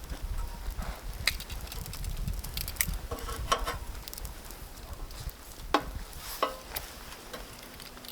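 Campfire crackling: irregular sharp pops and clicks, a few of them louder knocks, the loudest a single crack about three-quarters of the way through, over a low rumble.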